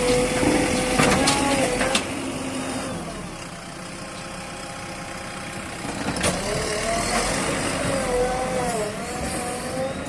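JCB 3DX backhoe loader's diesel engine running while working, its pitch wavering up and down. A few sharp knocks come in the first two seconds and another about six seconds in.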